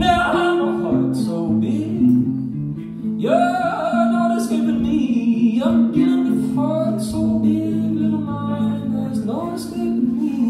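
Live song: a man singing in several phrases with short gaps, over guitar accompaniment.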